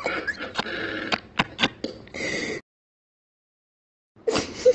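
Voice-message playback from a phone: irregular rustling noise with a few sharp clicks, which cuts off to dead silence about two and a half seconds in as the message ends. Near the end a loud sudden burst starts as the next voice message begins.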